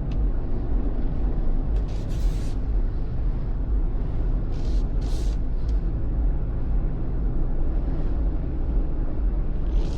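Road noise inside a moving car's cabin: a steady low rumble from the engine and tyres, with a few short hissing bursts about two seconds in and again around five seconds in.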